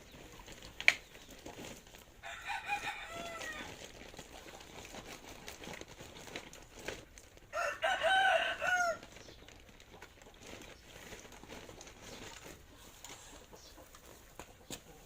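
A rooster crowing twice, once about two seconds in and again, louder, about halfway through. There is also a single sharp click about a second in.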